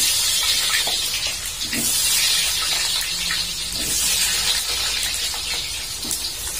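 Potato pieces deep-frying in hot oil in a wok: a steady, loud sizzle, with a few soft knocks as more pieces go in.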